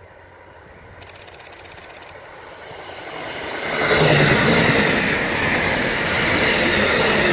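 Electric passenger train approaching and passing close at speed. Its noise builds from about three seconds in and is loud from about four seconds on, with the clatter of wheels on the rails.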